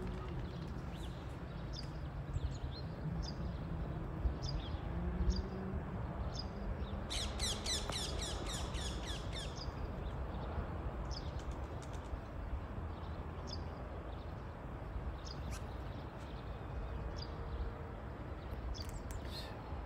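Small birds chirping outdoors, with short high calls scattered throughout over a steady low background rumble. About seven seconds in comes a rapid run of repeated high calls lasting about two and a half seconds.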